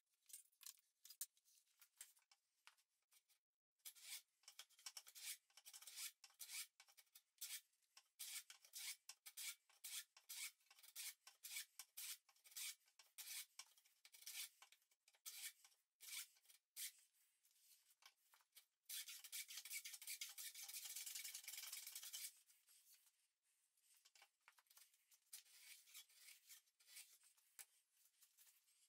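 Hand tool shaving or scraping along the edge of a wooden board: a run of short, quick strokes, with one longer continuous stroke about two-thirds of the way through.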